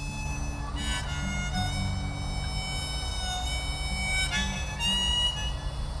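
Background music of long held chords that change a few times, over a low steady hum.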